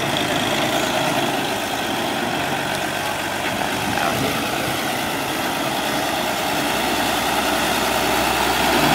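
Diesel engine of a heavy vehicle running steadily at idle, a little louder near the end.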